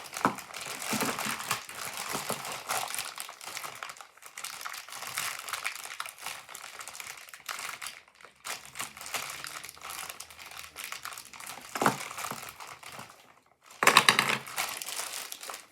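Plastic packaging of a LEGO set crinkling and rustling as it is handled and opened, with a patter of small clicks. A brief lull, then a louder burst of crinkling near the end.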